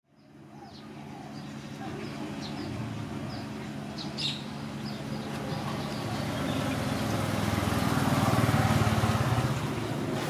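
Low, steady motor hum with a few short high chirps over it in the first half; the hum swells louder around eight to nine seconds in.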